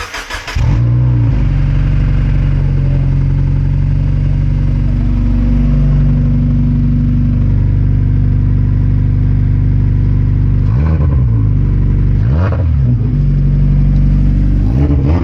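Mazda MX-5 four-cylinder engine cranking briefly on the starter and catching, then idling steadily. It is revved briefly twice in the last few seconds.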